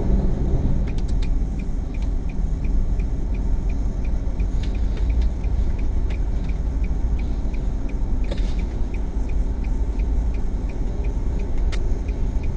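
Low rumble of a car's engine and road noise heard inside the cabin, with the indicator relay clicking steadily at about three clicks a second from about a second in.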